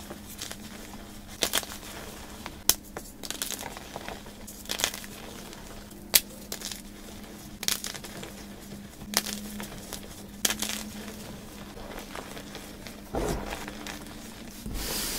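Dyed gym chalk crushed by hand: pieces of a chalk block snapping and crumbling in crisp, irregular crunches every second or two, then loose chalk powder squeezed in a softer, fuller rustle near the end. A faint steady hum runs underneath.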